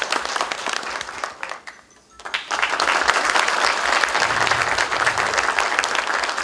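Audience applauding. The clapping dies away about a second and a half in, stops for a moment, then starts up again louder and keeps going.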